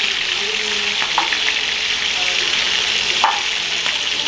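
Steady sizzle of oil frying, with two brief watery knocks, about a second in and again past three seconds, as fish are rubbed and rinsed in a plastic basin of water.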